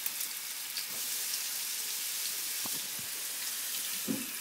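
Banana slices deep-frying in hot oil in a saucepan: a steady sizzle with scattered small crackles and pops.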